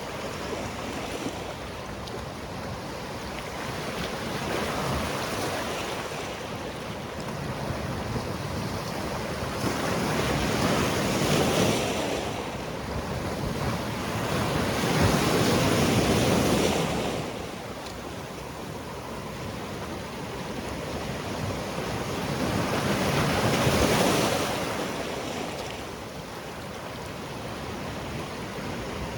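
Sea waves washing onto a rocky shore, rising to three larger surges about ten, fifteen and twenty-four seconds in, over a steady background wash.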